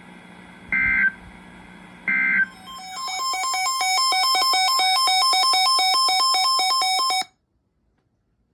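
The last two of the three Emergency Alert System end-of-message data bursts: short two-tone digital chirps about a second apart. They are followed by a loud, rapid electronic beeping that flips between two pitches for about four seconds and then cuts off suddenly.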